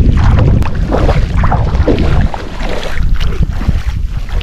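Shallow water sloshing and splashing around a wading fisherman's legs as a wet gill net is hauled through it, with wind buffeting the microphone in a heavy rumble.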